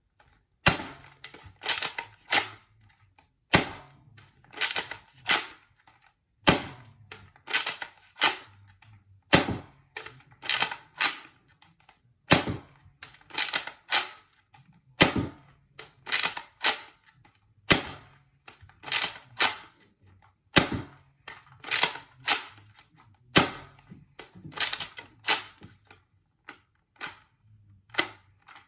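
Nerf Rival Roundhouse blaster being fired over and over in a mag dump. It makes sharp clacks in quick groups of two or three, repeating about every one and a half seconds.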